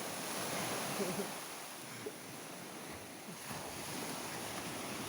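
Sea surf washing onto the shore: a steady rushing wash that eases off in the middle and swells again in the second half.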